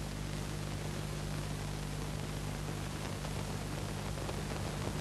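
Steady hiss with a low electrical hum underneath: the background noise of an old recording, with no other sound.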